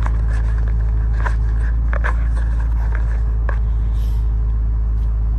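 Steady low rumble of an idling car heard inside the cabin, with scattered clicks and crinkles as a ratchet's packaging is handled and opened close to the microphone.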